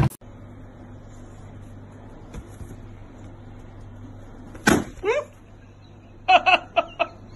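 A small dog bites a clear balloon filled with gold star confetti and it pops with one sharp bang past the middle, followed at once by a short falling cry. A few short high cries come about a second and a half later.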